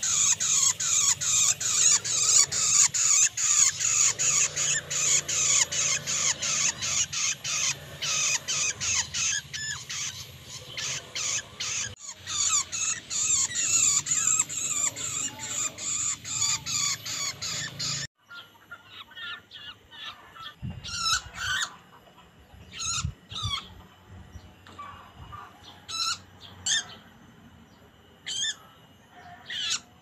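Long-tailed shrike (pentet) calling: a fast, harsh, repeated chatter of about three calls a second. About halfway through it breaks off abruptly, and only scattered single sharp calls follow.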